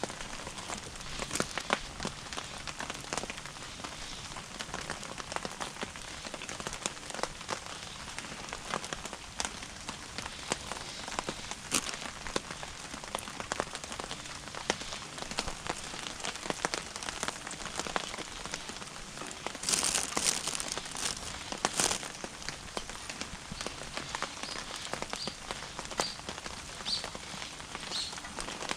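Wood fire crackling in a small wood-burning cooking stove, a steady scatter of small irregular pops and ticks, with a louder burst of pops about two-thirds of the way through.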